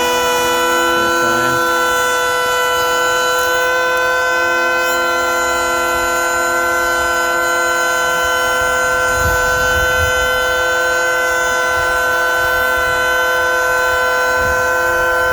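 DeWalt 20V XR brushless cordless hand planer running at a steady high whine while making a planing pass along a wood edge, set to take off 1/64 inch.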